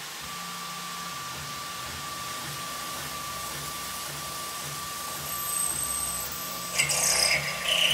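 Tormach PCNC 1100 CNC mill's spindle running with a steady whine while a woodruff cutter mills an undercut slot in aluminum under mist coolant. The cutting gets louder in two short spells, around five and seven seconds in.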